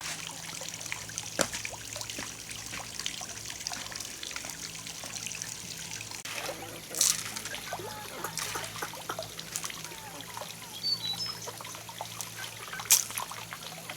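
Water trickling, with scattered sharp clicks and taps, three of them louder.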